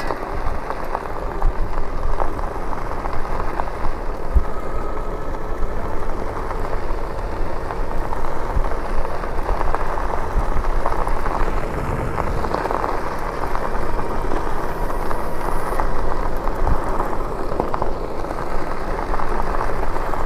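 Lectric e-bike riding along a road, with a steady crackling rush of tyre and riding noise.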